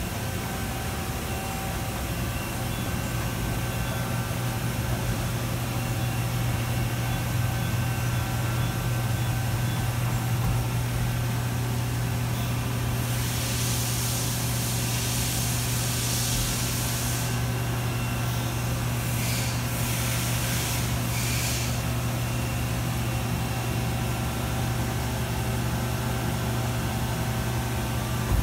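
Fadal VMC-4020HT vertical machining centre running a test program, its axes traversing with a steady low hum. A loud hiss comes in about halfway through for several seconds, then returns in a few short bursts.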